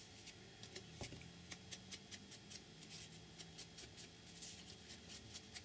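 Faint, quick dabbing and rubbing of a foam ink applicator on a wooden craft stick, a run of soft scratchy taps several a second, as distress ink is worked onto the wood.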